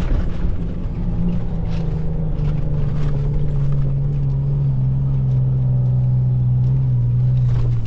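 A 4WD vehicle's engine drones steadily, its pitch slowly easing down as it slows.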